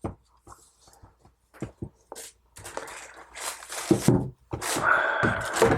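Handling noises from a watch box and its packaging: a string of small clicks and knocks, then louder rustling and scraping in the second half.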